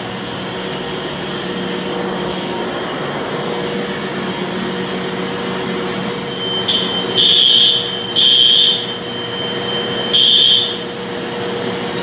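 Building fire alarm sounding during a test, a steady buzzy tone. Past the middle come three loud, high-pitched beeps of about half a second each, the last after a longer gap.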